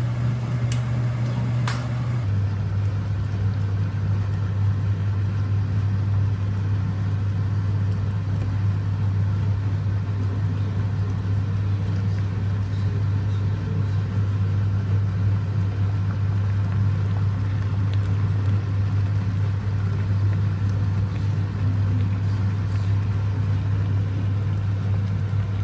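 A steady low mechanical hum, like a motor or fan running, that drops slightly in pitch about two seconds in.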